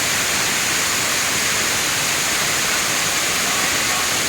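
A waterfall's falling water, a steady even rush of noise.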